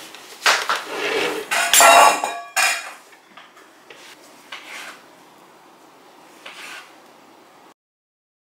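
Kitchen utensils and dishes clattering, loudest in the first three seconds, with one ringing metallic clink about two seconds in. Faint handling noises follow, and the sound cuts off completely near the end.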